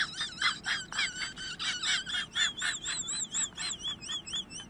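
High-pitched, squeaky laugh sound effect: rapid chirping pulses about four or five a second, each wavering in pitch, running into a drawn-out wavering squeal near the end.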